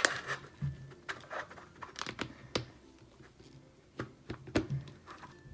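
Hard plastic toy pieces being handled and fitted together: a scatter of light, irregular clicks and knocks.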